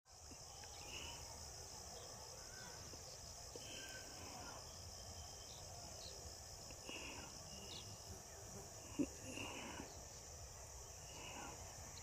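Faint outdoor ambience: a steady high insect drone, with scattered short bird chirps and one sharp click about nine seconds in.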